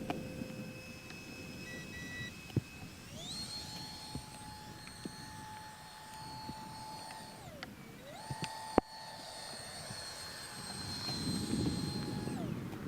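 Electric ducted fan of a mini RC jet whining in flight, its pitch stepping up, dropping, rising again and dropping near the end as the power changes. A single sharp click about nine seconds in.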